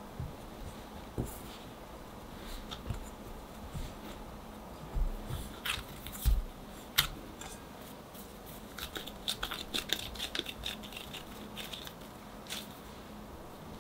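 Hands kneading a stiff dough of condensed milk and cocoa powder in a glass bowl: irregular sticky squishes and pats, with a few louder thumps about five to seven seconds in and a run of quick crackly clicks near ten seconds in.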